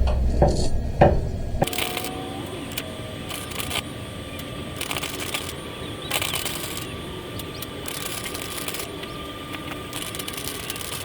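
A few heavy knocks, then arc welding: the weld crackles and sizzles in several short bursts as the inside of a wire quail-cage joint is welded.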